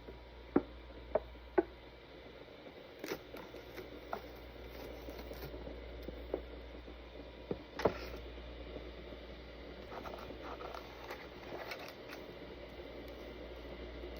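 Small household handling sounds: three sharp knocks in quick succession about half a second in, then scattered lighter clicks and knocks over a steady low hum.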